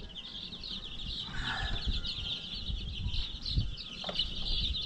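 A crowd of young chicks peeping continuously, a dense high chorus of short falling cheeps, with one louder, lower call about a second in. Scattered low thumps and rustles come from the chicks being handled.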